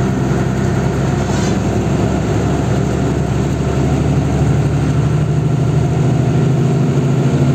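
Truck engine running steadily while cruising on the highway, heard from inside the cab over tyre and wind noise; the engine's low note grows louder about four and a half seconds in.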